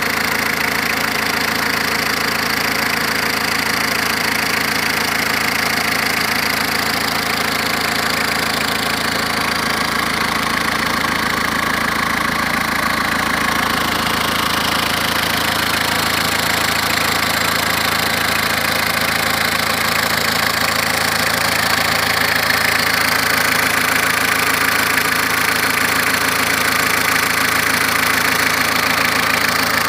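Renault Clio 2's 1.9 dTi four-cylinder turbodiesel engine running at a steady idle, heard up close under the open bonnet.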